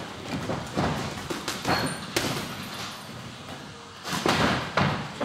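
Boxing gloves thudding as punches land during sparring, a run of irregularly spaced thuds with louder blows clustered about four seconds in.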